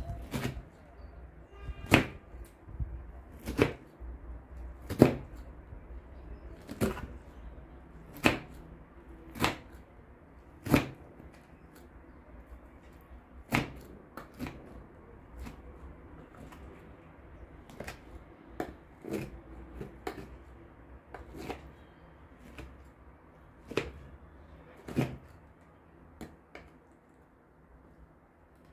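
A plastic crinkle cutter pushed down through layered boiled cabbage leaves, its blade striking the bottom of a glass baking dish: sharp clicks about every second or so, growing sparser and fainter in the second half.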